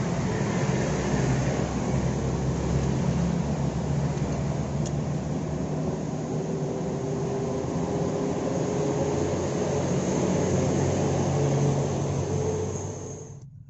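Small motorcycle engine running steadily, cutting off abruptly near the end.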